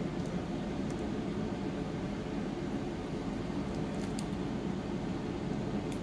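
Steady low background hum, like a room fan running, with a few faint light clicks scattered through it.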